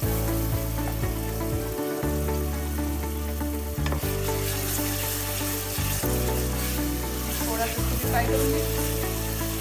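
Onions, green chillies and garlic-ginger paste sizzling in oil in an aluminium pressure cooker while being stirred with a spatula, which knocks sharply against the pot every second or two.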